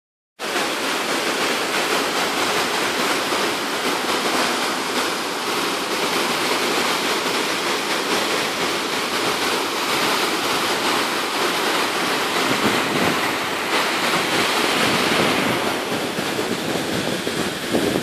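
Small waterfall pouring over rocks into a pool: a steady rush of falling water, cutting in just after the start.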